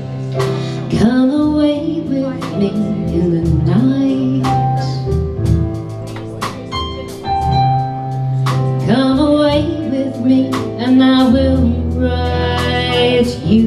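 A woman singing live with guitar accompaniment, holding long notes over picked guitar chords.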